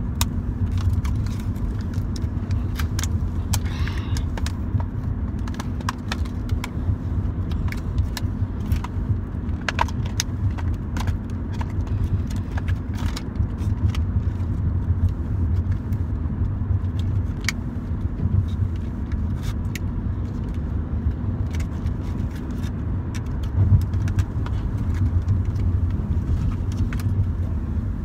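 Steady low road rumble inside a moving car's cabin, with many short, sharp clicks and crackles from a clear plastic cube package being handled and pried open.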